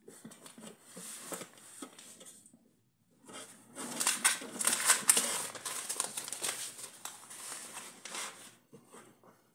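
Sheets of paper rustling as a hand shifts and smooths them on a desk, soft at first, stopping briefly about two and a half seconds in, then louder and more ragged.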